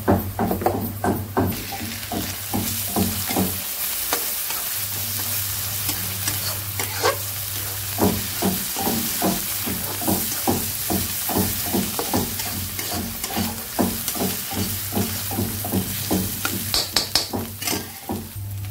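Onions, ginger-garlic paste and turmeric sizzling in hot oil in a metal kadai while a spatula stirs and scrapes them against the pan in quick, repeated strokes. The sizzle grows louder about a second and a half in.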